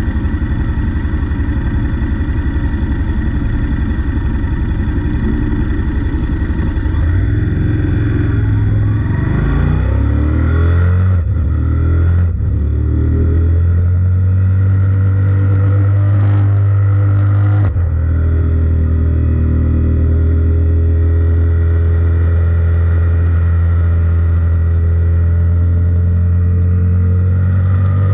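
Sport bike engine idling, then pulling away and accelerating hard through the gears, the revs climbing and briefly dropping at three upshifts. It then runs at steady high revs, the pitch slowly rising near the end.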